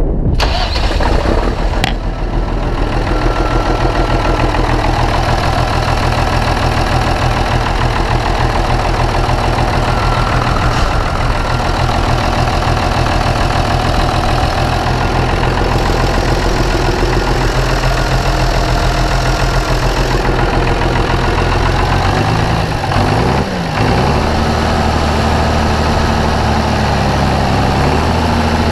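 Belarus MTZ-2022.3 tractor's diesel engine, just started for a test run, running steadily at idle, heard up close at the open engine bay. About 22 seconds in, its speed wavers briefly and then settles at a different steady pitch.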